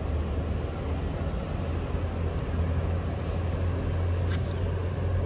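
Steady low hum of a running motor vehicle engine nearby, a little stronger after the first couple of seconds, with two short scratchy sounds about three and four and a half seconds in.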